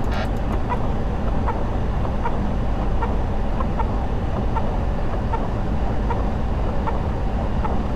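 Boeing 737 flight deck on final approach: a steady rumble and hiss of airflow, with short squeaky blips repeating about twice a second from the windshield wipers sweeping the rain-wet glass.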